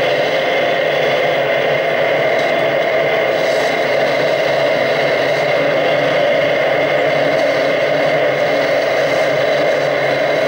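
A steady, dense mechanical-sounding drone from a live electronic sound performance played from a laptop. It runs on evenly, without breaks or changes.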